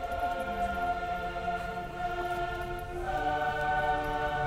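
Background music of sustained, choir-like held chords, moving to a new chord about three seconds in.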